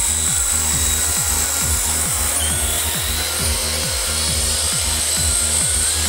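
Electronic background music with a fast, steady beat of short pitch-dropping kick drums and a high, steady whine on top.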